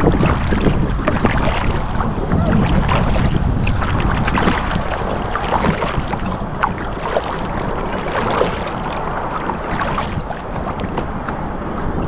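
Water splashing and lapping around an inflatable kayak, with irregular small splashes throughout and steady wind buffeting the microphone.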